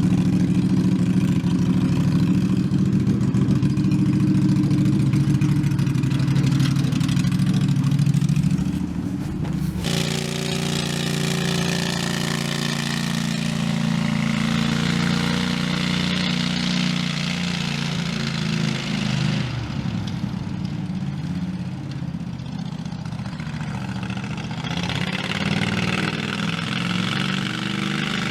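Engine running steadily, about a third of the way in the sound changes abruptly to a quieter engine with more hiss, its speed rising and falling in the later part.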